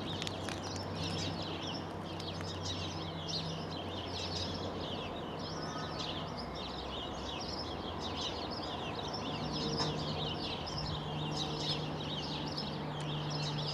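Many small birds chirping and twittering without pause. Under them is the faint, steady low hum of a diesel freight locomotive, a Class 66, running in the distance.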